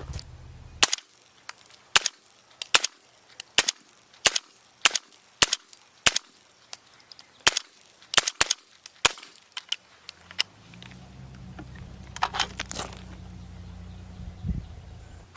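Suppressed .300 Blackout rifle firing a quick string of about fifteen separate shots, roughly one every half second, which stops after about eight seconds. A low steady rumble follows.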